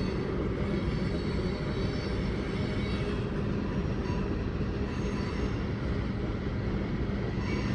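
Freight cars of a long mixed manifest train rolling past on the rails, a steady rumble and hiss of wheels on track.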